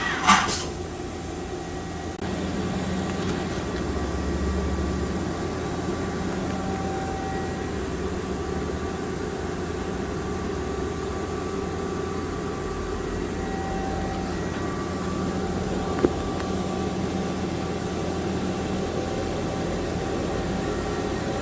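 Haas TM-2P vertical CNC machining center running: a steady machine hum with faint tones that come and go. A sharp click sounds just after the start and another about two-thirds of the way through.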